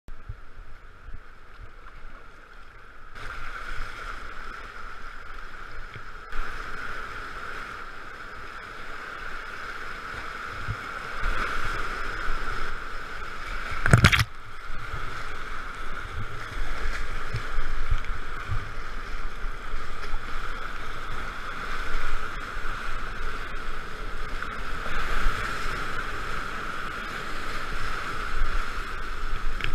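Rushing, churning whitewater of a river rapid close around a kayak, with splashing as the boat runs through it. A single sharp knock sounds about halfway through.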